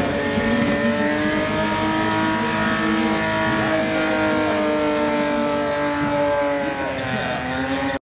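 BMW E30 drift car's engine held at high, steady revs as it spins its rear tyres in smoky donuts, with tyre noise underneath. The engine pitch eases slightly lower near the end.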